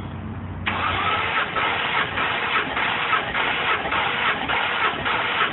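Noble M12's twin-turbo 3.0 L Ford Duratec V6 being cranked on its starter with the spark plugs out for a compression test. The cranking starts suddenly under a second in and carries on as an even, rhythmic pulsing while the gauge on the number one cylinder builds pressure.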